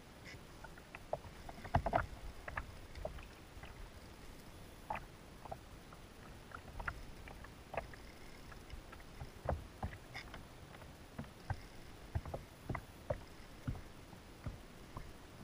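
Small waves slapping against the hull of a small boat: irregular knocks and splashes, about one or two a second, over a low steady rumble.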